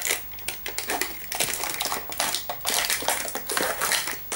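Clear plastic Shopkins toy case being handled: a quick, irregular run of plastic clicks and crackles as its lid and compartments are worked and small plastic toys rattle inside.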